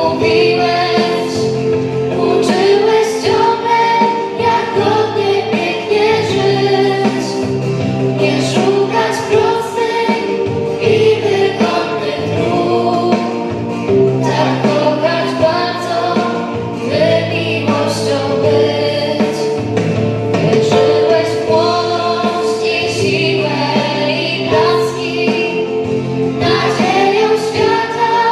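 Children's choir, mostly girls, singing together through microphones over sustained low accompaniment notes.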